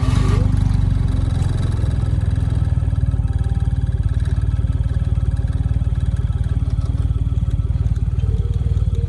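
Turbocharged Perodua Kancil engine starting up and running at a steady idle of about 800 to 1000 rpm.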